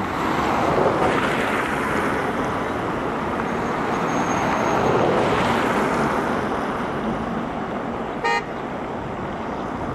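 Road traffic going by: a motor vehicle's noise swells, peaks and fades away over several seconds. A brief high toot sounds near the end.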